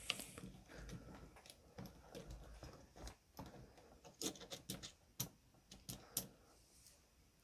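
Faint small metallic clicks and taps as the head of a model engine is handled and worked loose by hand, with a cluster of sharper clicks past the middle.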